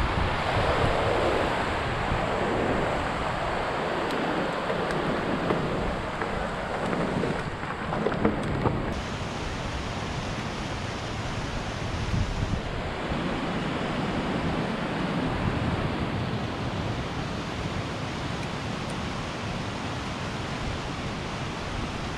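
Wind rushing over the microphone of a camera riding along on a mountain bike, with a buffeting low rumble that rises and falls. A few sharp knocks come about eight seconds in.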